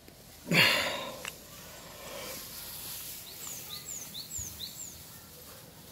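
A man's loud strained grunt, falling in pitch, about half a second in, then a bird calling four quick descending chirps in the background.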